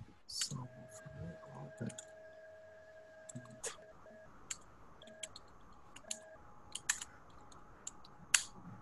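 Computer keyboard keystrokes: sparse, irregular clicks as code is typed.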